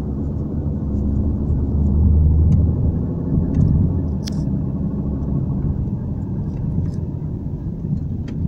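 Range Rover Evoque's differential droning inside the cabin while driving, a steady low hum over the road noise that swells about two seconds in; the noise comes from wear inside the differential. A short click about four seconds in.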